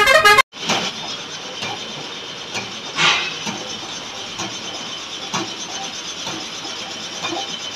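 Light metal knocks and clinks as a motorcycle front fork tube is handled and set in a straightening press, with a louder clank about three seconds in, over a steady workshop hiss.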